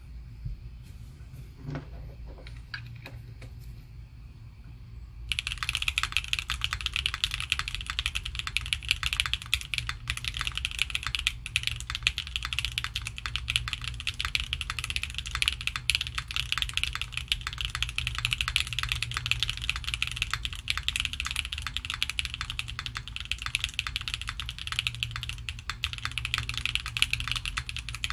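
Typing on a Neo65 gasket-mount mechanical keyboard with stock Kailh BCP switches, an FR4 plate and PBT keycaps: a few faint taps, then from about five seconds in a dense, continuous stream of keystrokes with a clean sound.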